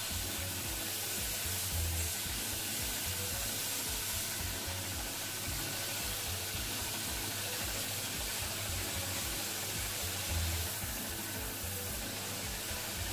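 Steady hiss of a water jet from a hose spraying onto a freshly cast gold jewellery piece, washing the white investment plaster off the casting.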